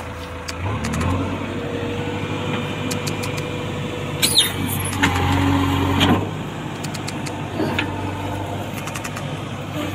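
A motor vehicle engine running steadily, with scattered clicks and a brief higher squeal about four seconds in.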